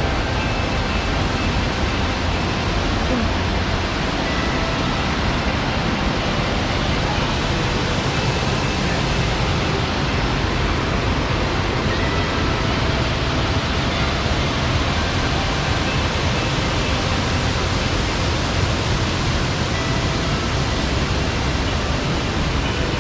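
Steady, unbroken rush of a 75-foot waterfall pouring into its plunge pool, heard close to the base of the falls.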